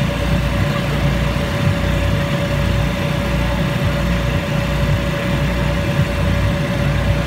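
Electric air blower keeping an inflatable bounce house inflated, running with a steady hum and a constant mid-pitched whine over a low rumble.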